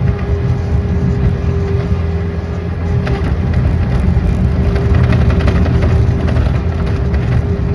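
A motor engine running steadily, with a low rumble and a steady whine.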